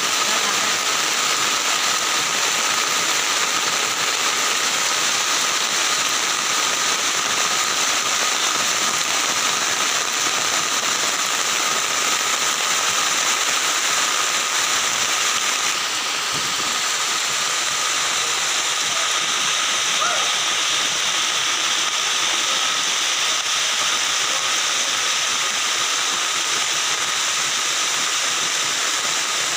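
Heavy rain falling on foliage together with a flooded stream rushing past, a steady, unbroken wash of noise.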